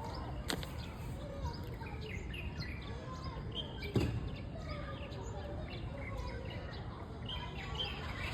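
Many birds chirping with short rising and falling calls, over a steady outdoor background noise and faint children's voices, with a sharp click about half a second in and a thump about four seconds in.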